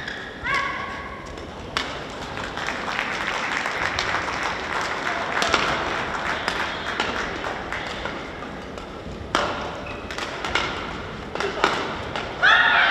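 Badminton doubles rally: racket strikes on the shuttlecock as sharp pops at uneven intervals, with shoe squeaks on the court mat. Near the end a loud shout or squeal marks the end of the rally and clapping begins.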